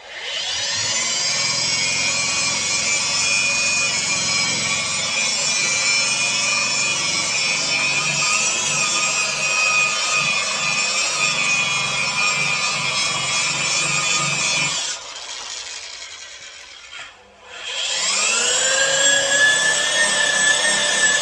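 Handheld electric power tool buffing a headlight lens, its motor running with a steady high whine. About fifteen seconds in it eases off and briefly stops, then starts again with the whine rising as it spins back up.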